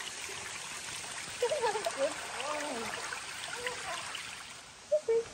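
A small stream running with a steady rush that fades near the end. A few short, voice-like sounds rise and fall over it in the middle and again near the end.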